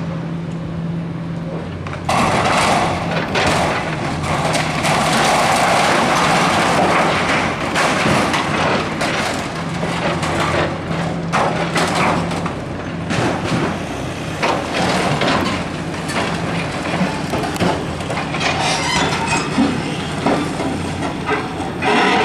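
Excavators demolishing a concrete building: their diesel engines run steadily under frequent cracks, crunches and crashes of breaking concrete and falling rubble, growing louder about two seconds in.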